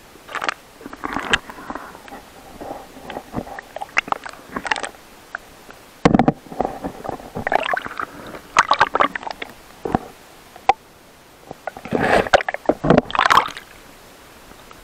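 Water sloshing and gurgling around a camera microphone dipped in and out of shallow lake water. Irregular splashes come in bursts, the strongest about six seconds in and again near the end.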